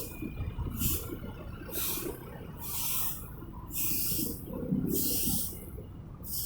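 Road traffic at a crossroad: a low rumble of vehicles, with a high hiss that repeats about once a second.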